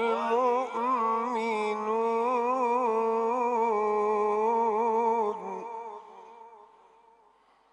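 Male Quran reciter in the melodic tajwid style, holding one long ornamented note with a wavering pitch. The voice breaks off about five seconds in and fades away.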